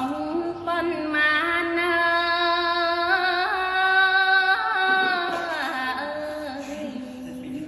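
A woman chanting Khmer smot, Buddhist devotional verse, unaccompanied. She sings one long phrase of held notes with ornamented turns, stepping lower about five seconds in and tailing off near the end.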